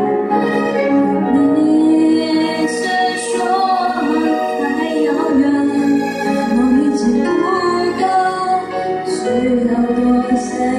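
A woman singing a Mandarin pop ballad into a microphone over a musical accompaniment, with long held, bending notes.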